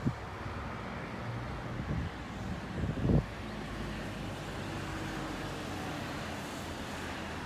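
Road traffic on a nearby street, with wind buffeting the microphone in a few low thumps, the loudest about three seconds in.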